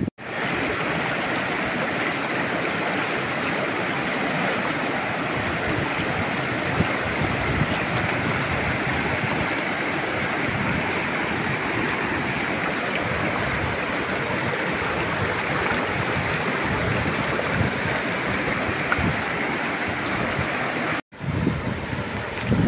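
Steady rush of a rocky river running over shallow rapids, with a brief drop-out near the end.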